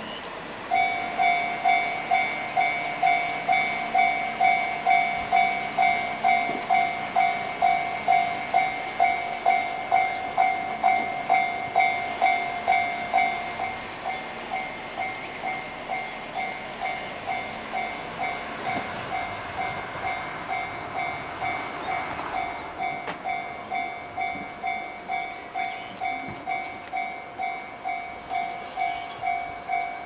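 Railway level-crossing warning bell starting about a second in and ringing a steady, evenly repeated ding about twice a second; about halfway through it drops to a quieter level.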